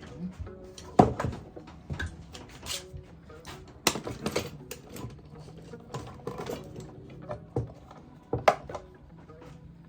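Clamps being handled and tightened on an oak workpiece: an irregular run of clicks and knocks, the sharpest about a second in, near four seconds and about eight and a half seconds in.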